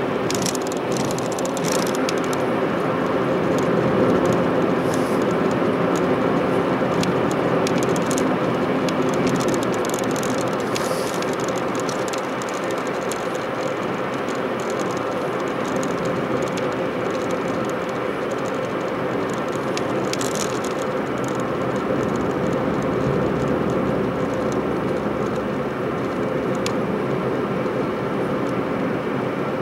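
Chevrolet Spark heard from inside the cabin at highway speed: a steady drone of engine and road noise.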